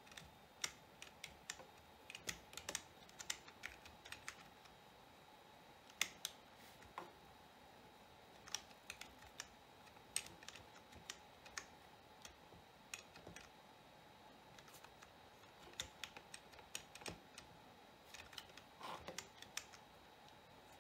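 Keystrokes on a non-mechanical gaming keyboard with stiff-pressing keys: irregular clicks of keys being pressed and released, sometimes several in quick succession, as movement and jump keys are worked during a game.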